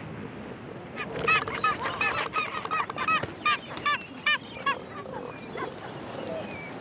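A rapid series of short, high, honking animal calls, many in quick succession, growing fainter after about four and a half seconds.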